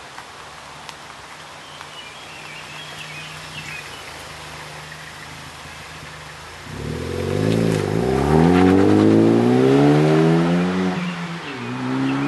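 Ford Focus ST with an MBRP catback exhaust accelerating hard past close by, its engine note climbing steadily in pitch, then dipping and climbing again near the end. A low steady hum comes before the car's note rises suddenly about seven seconds in.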